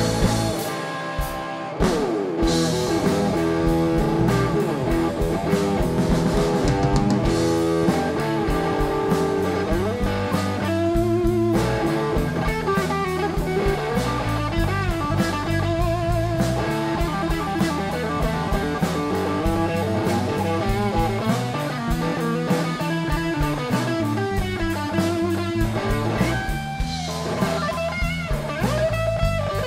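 Live blues band in an instrumental break between verses: electric guitar playing a lead line with bent notes over bass guitar and a steady drum-kit beat.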